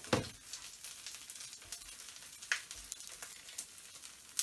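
A thin rice-flour bánh xèo crêpe sizzling in oil in a hot wok, crisping, with scattered crackles. A spatula scrapes against the pan right at the start, and there are a couple of sharper ticks later.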